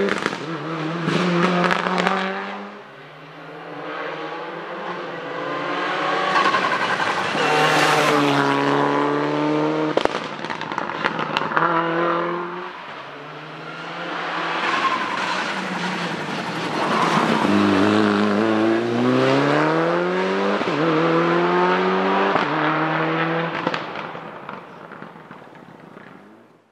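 Mitsubishi Lancer Evolution VIII's turbocharged four-cylinder rally engine run hard up a hillclimb: revs climb and drop through repeated gear changes, with several sharp pops from the exhaust. The engine sound fades twice as the car passes out of earshot and dies away near the end.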